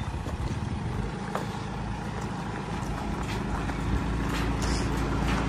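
A parked fire engine's diesel engine running at a steady idle, its hum growing gradually louder, with a steady higher tone joining about three and a half seconds in.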